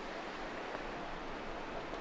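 Sea waves washing on the shore, a steady, even hiss.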